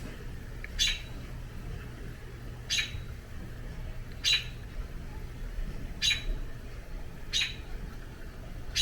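American robin giving sharp, single call notes over and over, six in all, about one every second and a half, each a quick downward-sweeping note. It is the mother bird's persistent agitated calling, which the homeowner takes to mean her baby may have fallen from the nest again.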